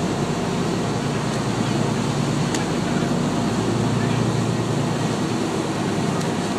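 Boat engine running steadily with a low drone while the boat is under way, water rushing along the hull and wind on the microphone.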